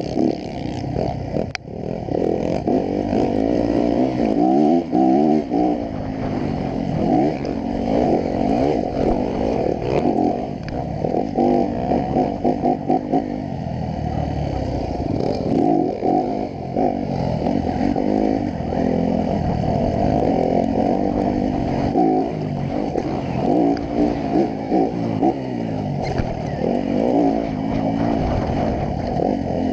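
Dirt bike engine heard from the rider's chest, revving up and down as the bike accelerates and shifts along the track. There is a sharp knock about two seconds in.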